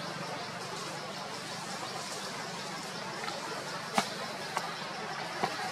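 Steady outdoor background noise, an even hiss over a faint low hum, with one sharp click about four seconds in and two softer clicks shortly after.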